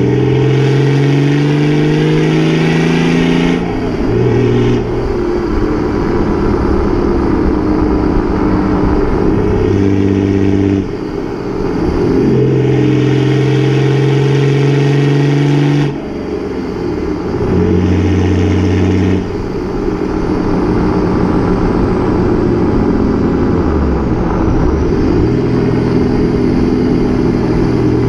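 Toyota Land Cruiser 100 Series 1HD-FTE 4.2-litre turbo-diesel straight-six through a straight-pipe exhaust with no mufflers, pulling through the gears. The note climbs under acceleration and drops at each gear change, about four times, with a faint turbo whistle above it.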